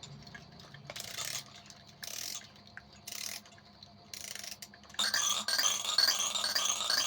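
A baby's toy making its sounds: four short mechanical rattling bursts about a second apart, then a bright electronic tune starting about five seconds in.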